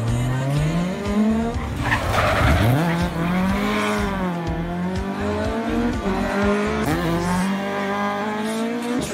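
Rally car engines revving hard as the cars accelerate out of a tight corner, the pitch climbing and dropping several times with the gear changes. A short burst of tyre noise comes about two seconds in.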